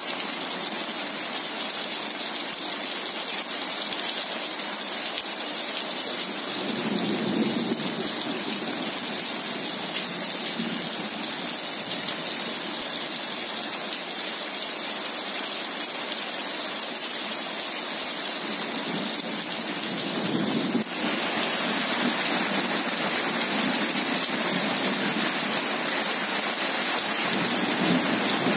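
Heavy rain falling on an asphalt road and wet paving slabs, a steady hiss of splashing drops. Low rumbles of distant thunder come and go, and about two-thirds of the way in the hiss suddenly grows louder and brighter.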